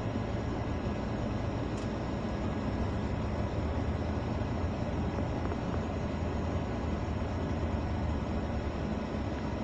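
Car engine and road noise: a steady low rumble with a faint hum, unchanging throughout.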